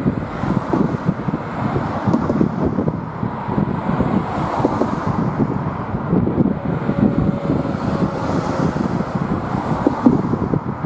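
Wind buffeting the microphone, a steady rough rumble that flickers unevenly with no clear pitch or rhythm.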